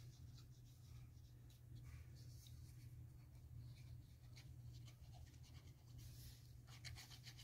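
Faint scratching and rubbing of a glue bottle's nozzle dragged back and forth across a scrap of paper, spreading glue, over a low steady hum.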